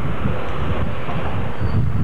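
Wind buffeting the camcorder microphone: a steady low rumble with a fainter hiss above it.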